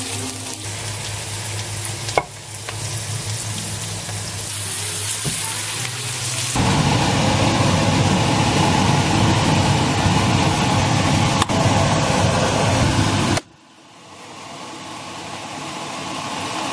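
Diced onion sizzling in oil in a frying pan as it is stirred with a silicone spatula. About six seconds in the sound switches abruptly to a fuller, deeper sizzle of the stew's liquid cooking in the pan; near the end it cuts out and builds back up.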